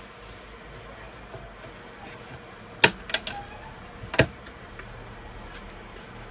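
Four sharp clicks, three in quick succession about three seconds in and one more a second later, from handling the opened Mac mini's parts and tools, over the steady hiss of a room fan.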